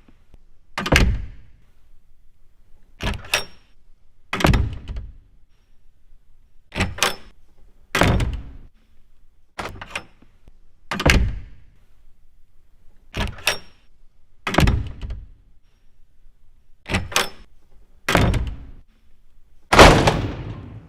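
A series of about a dozen knocks or thuds, often in pairs a second or so apart, each dying away quickly, with the last one the loudest.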